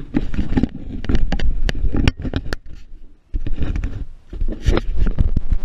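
Handling noise from a camera being gripped and repositioned at close range: irregular rubbing, scraping and knocking against the microphone, with a brief pause about halfway through.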